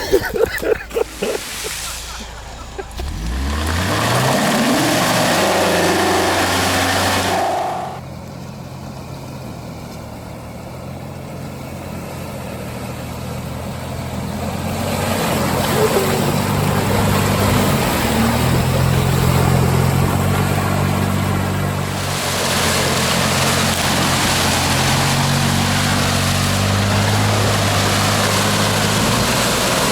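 Off-road vehicle engines running and revving, their pitch rising and falling with throttle, with abrupt changes in the sound about eight and twenty-two seconds in.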